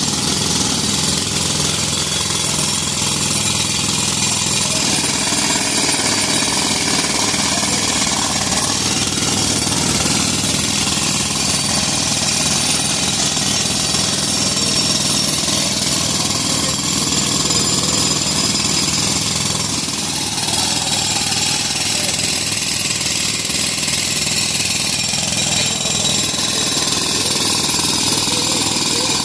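A jackhammer hammering continuously at a rapid, steady rate, with an engine running underneath.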